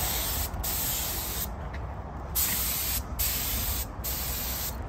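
Compressed-air paint spray gun hissing as it sprays primer onto a wheel rim. The hiss breaks off briefly several times, once for most of a second.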